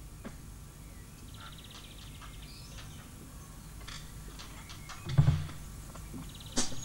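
Quiet gap before the music starts: a steady low hum with scattered small knocks and clicks, a single loud low thump about five seconds in and a sharp tap near the end. A bird gives a short rapid trill early on and a high chirp at the very end.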